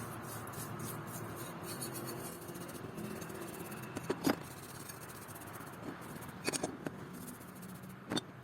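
Faint rubbing and scraping with a few sharp clicks and taps, about four seconds in, around six and a half to seven seconds in, and again near the end.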